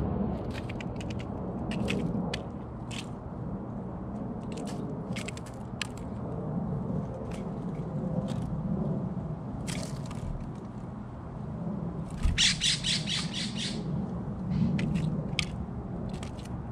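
California scrub-jay at a platform feeder, its bill tapping and clicking sharply and irregularly on peanuts and seed. About twelve seconds in comes a quick rattling run of harsh calls, the loudest sound.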